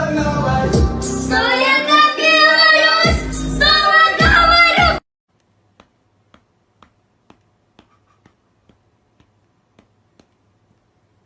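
Music with a high singing voice, which cuts off suddenly about five seconds in. Faint, evenly spaced ticks follow, about two a second.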